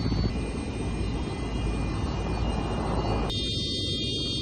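Jet engines of a Tu-22M3 bomber running on the ground: a loud low rumble under a steady high turbine whine. About three seconds in, the sound changes abruptly, the rumble thinning and the whine coming through stronger.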